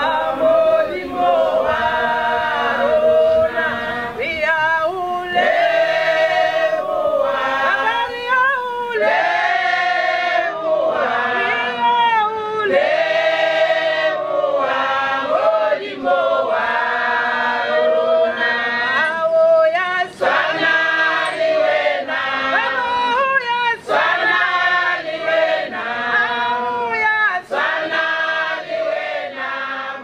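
A choir singing, in phrases of a second or two.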